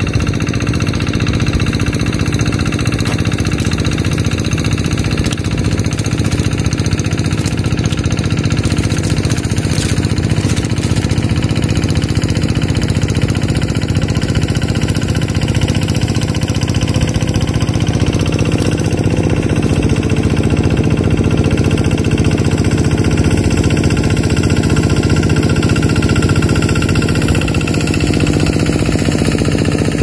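A small engine running steadily with a rapid, even pulse, its pitch shifting slightly about two-thirds of the way through.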